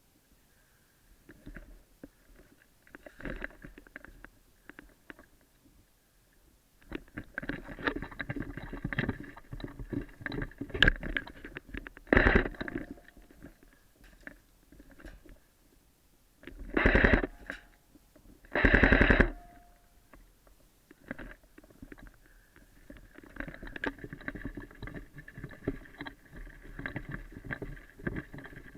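Airsoft electric gun firing short full-auto bursts, two loud ones each under a second about two seconds apart, after a shorter one earlier, amid rustling movement noise.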